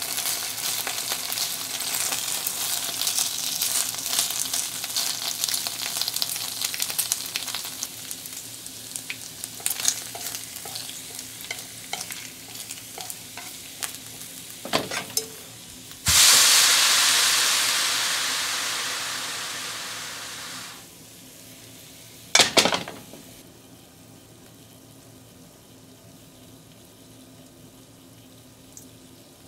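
Bacon strips sizzling in a nonstick frying pan, with chopsticks tapping and pushing them about. About halfway through, a sudden loud hiss starts and fades away over about five seconds. A brief clatter follows, and after that the pan is much quieter.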